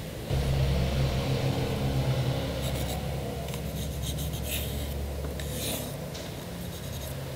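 MDF pieces rubbing and scraping against an MDF board as they are slid and pressed into position, a series of short scratchy strokes mostly in the middle. A steady low hum starts about a third of a second in and runs beneath them.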